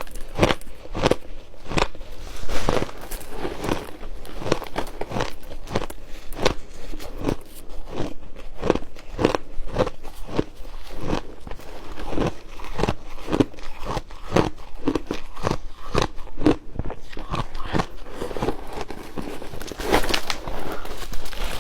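Close-miked biting and chewing of refrozen shaved ice: a steady run of sharp, crunchy crunches, about two a second.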